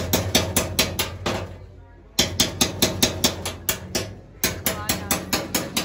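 Coppersmith's small hammer tapping a hand-held punch into a thin copper sheet on a metal tray: a quick, even run of sharp metallic taps, about five or six a second. The tapping eases off briefly about two seconds in and again about four seconds in.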